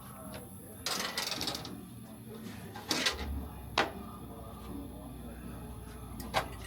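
Workshop handling noises on a motorcycle being serviced: a short hiss about a second in, then several sharp metallic clicks and knocks. A low steady hum starts about three seconds in.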